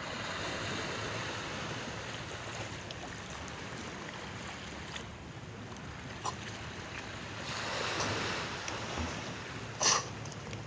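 Sea waves washing and splashing against a ferry's hull, with a steady rush of water that swells at the start and again about three-quarters of the way through. A short sharp knock comes near the end.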